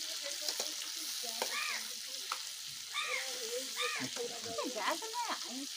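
Prawns sizzling steadily as they fry in hot oil in an iron kadai, stirred with a metal ladle. Short rising-and-falling pitched calls sound over it a few times.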